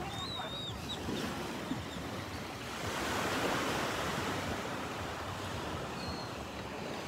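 Small, gentle waves washing onto a sandy beach, the wash swelling about three seconds in and easing off again.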